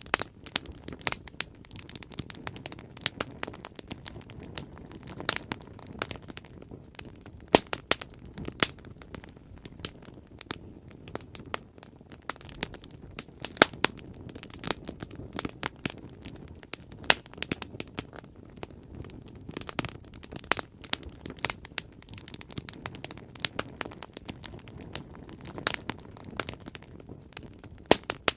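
Bonfire burning, wood crackling with a steady low rush and frequent sharp, irregular pops and snaps.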